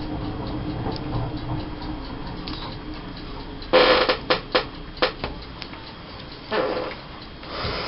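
Paper and cardstock craft pieces being handled on a table: a few brief rustles and several light taps and clicks, starting a little past halfway, after a faint steady background hum.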